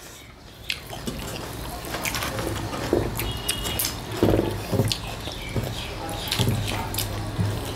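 Eating by hand: fingers mixing rice on a brass plate, wet smacking and chewing, and lentil dal poured from a brass bowl onto rice.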